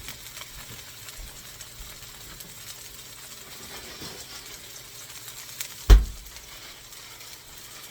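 Homemade veal patties sizzling as they sear on a hot stovetop grill pan. About six seconds in there is a single sharp knock.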